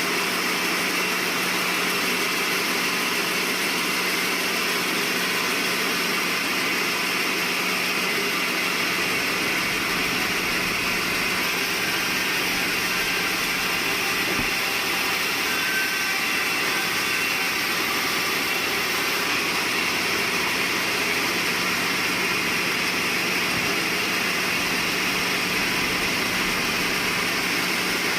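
Sawmill machinery running steadily, a continuous even noise with a constant low hum.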